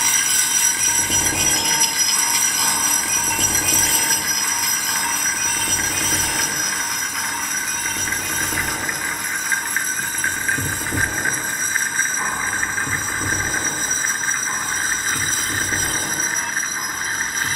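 Sustained ambient drone with a dense metallic shimmer of many high ringing overtones, as from a gong played in a continuous wash, over a soft, slowly pulsing low end.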